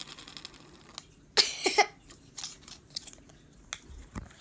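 Plastic Play-Doh tubs and a lump of Play-Doh being handled on a table: scattered clicks and rustles, with a louder rasping burst about a second and a half in.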